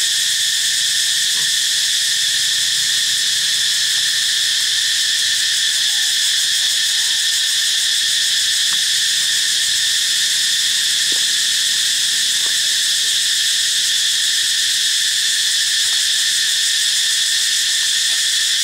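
Dense insect chorus: a loud, steady, shrill drone of several high pitches that never lets up.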